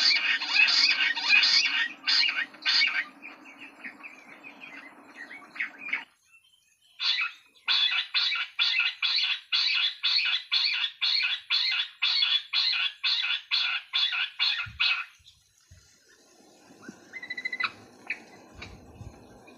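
Jungle bush quail calling: a fast run of repeated harsh notes, loudest at first and thinning out, then after a short pause a second even series of about three notes a second that stops about fifteen seconds in. A few faint short chirps follow.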